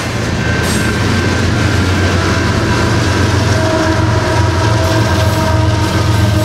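Union Pacific GE ES44 distributed-power diesel locomotives passing close by mid-train, their GEVO engines running with a steady low drone over the rumble of wheels on rail.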